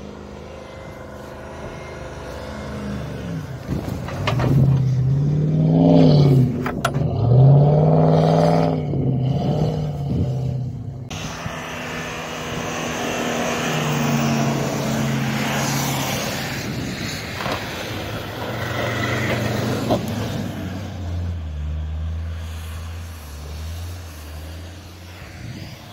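Off-road 4x4 engines revving as the vehicles churn through deep snow. Two revs rise and fall about five and eight seconds in, then the engines run more steadily, with a lower engine note near the end.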